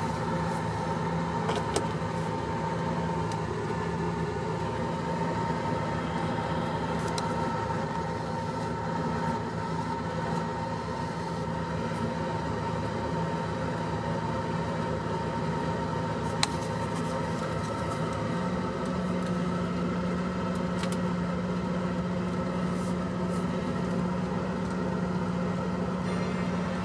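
Porsche 928 S2's V8 idling steadily, with a few faint clicks; about two-thirds of the way through, the idle note steps slightly higher. The car has a failing alternator, so the battery is running down while the engine idles with its electrical load on.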